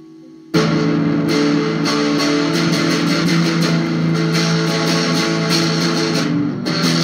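Electric guitar played through an amplifier: a steady amp hum, then about half a second in, loud chords strummed over and over.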